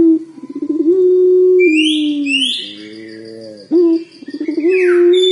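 Young puter pelung (Barbary or ringneck dove) cooing its long call twice: each phrase opens with a sharp note and a fast stuttering roll, then a long held note that steps down and slides lower. Higher chirps of other birds and a fine insect-like trill sound faintly above it.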